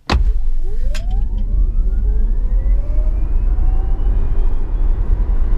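Tesla Model S 70D's dual electric motors under full acceleration from a standstill, heard inside the cabin. Several motor whine tones climb steadily in pitch over a loud low rumble of tyres on the road, which starts suddenly at launch.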